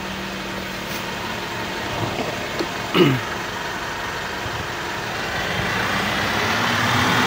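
Mitsubishi Pajero engine idling steadily during its idle-learning procedure, getting gradually louder over the last couple of seconds as the idle rises by itself. A brief chirp about three seconds in.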